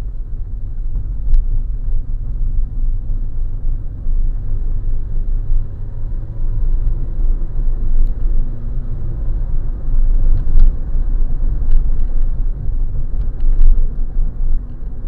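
Steady low rumble of a car's engine and tyres on the road, heard from inside the cabin while driving, with a few faint clicks or knocks.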